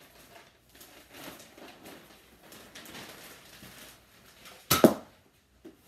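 Rustling as a foam-dart blaster is handled, then a single sharp pop about five seconds in as the Nerf blaster fires a dart, with a faint click just after.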